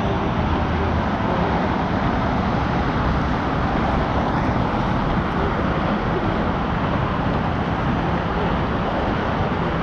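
Steady, even wash of distant highway traffic noise from the Don Valley Parkway and Bayview Extension in the valley below.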